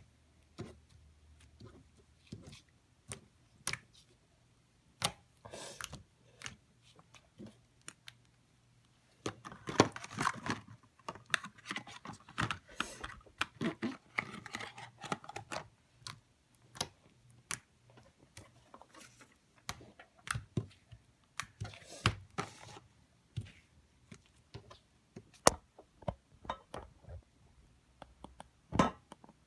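Slime being squished and poked by hand: irregular sticky clicks and pops, busiest from about nine to sixteen seconds in.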